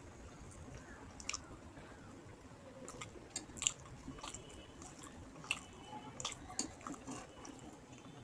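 A person chewing a mouthful of rice and fish curry, with irregular soft wet mouth clicks and smacks, the sharpest a little past halfway.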